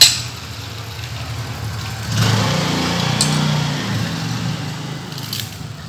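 A sharp tap at the start, then a vehicle engine's hum that rises about two seconds in, shifts in pitch, and fades away.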